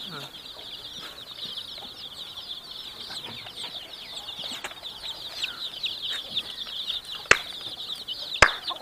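A flock of baby chicks peeping continuously, many high chirps overlapping without a break. Two sharp clicks near the end, a second or so apart, stand out above the peeping.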